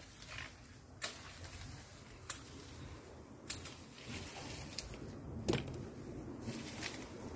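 Camera handling and footsteps of someone moving through the garden: a handful of soft clicks and knocks over a faint low rumble.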